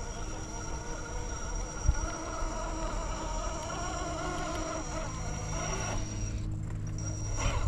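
RC rock crawler's electric motor and geared drivetrain whining as the truck crawls, the pitch wavering with throttle, with one sharp knock about two seconds in.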